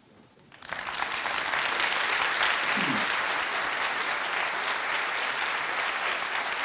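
Audience applauding: it starts about half a second in after a short quiet and carries on steadily, easing off a little near the end.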